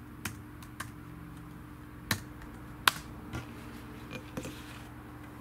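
Half a dozen small, sharp taps and clicks of things being handled on a table, the sharpest just before the middle, over a steady low hum.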